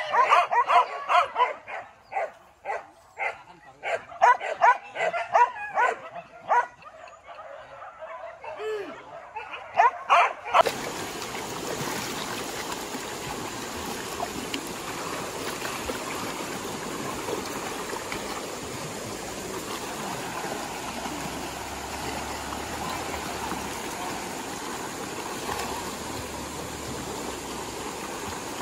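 Pack of boar-hunting dogs barking and yelping in rapid, excited, high-pitched bursts for about ten seconds. The sound then cuts off abruptly to a steady rushing noise of running water.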